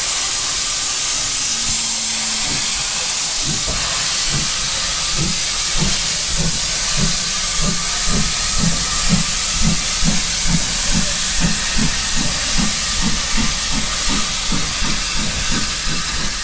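Saddle-tank steam locomotive pulling away, with a loud steam hiss from its open cylinder drain cocks. About four seconds in, its exhaust chuffs begin at roughly two a second and grow stronger.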